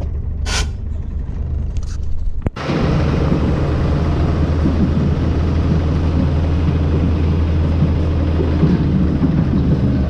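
Heavy diesel vehicle engine running with a steady low hum, with a short high sound about half a second in. About two and a half seconds in the sound cuts out for a moment and comes back louder and rougher, as a loaded semi-trailer tipper truck drives alongside over soft field soil.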